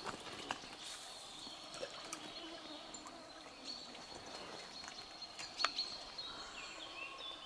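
Quiet outdoor ambience with faint bird calls and a few light clicks, the sharpest about five and a half seconds in.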